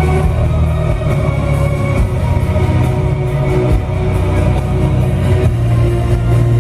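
Loud music with sustained tones and a heavy, steady bass.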